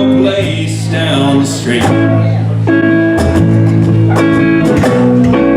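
Live acoustic guitar music, chords strummed and held through a song.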